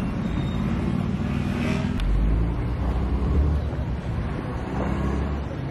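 City street traffic noise: a motor vehicle running close by, with a deep rumble that swells from about two seconds in.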